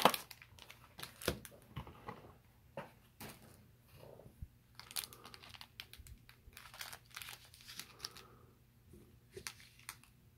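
Foil trading-card pack wrappers crinkling and rustling as they are handled, in scattered short crackles.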